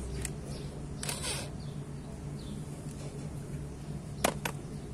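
Handling noise of a cordless drill/driver at a scooter's belt drive: a brief rustle about a second in, then two sharp clicks close together near the end, over a steady low hum.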